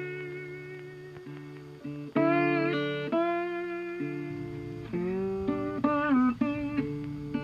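Background music: plucked guitar notes, struck in small clusters that ring out and fade.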